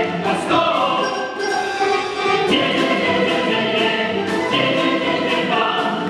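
An orchestra of Russian folk instruments, with domras and balalaikas, playing a lively instrumental passage of an operetta number with a regular beat.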